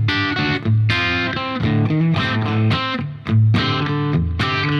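Electric guitar played through a Diezel Schmidt amp on its second channel, with the guitar's volume knob rolled down: a riff of picked notes and chords, with a brief break about three seconds in before a loud chord.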